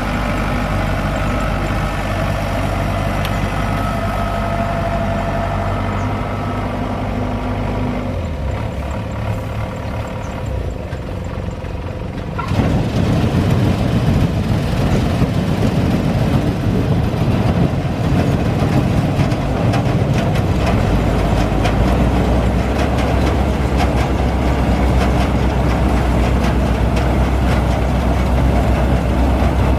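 Rice combine harvester's diesel engine running steadily. About twelve seconds in the sound turns louder and rougher and stays so.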